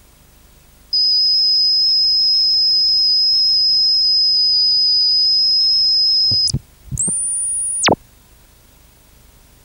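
Steady high-pitched electronic sine tone, loud and pure. It starts about a second in and holds for about five seconds, breaks into a quick swoop, and returns as a shorter, even higher tone that drops away in a fast falling glide.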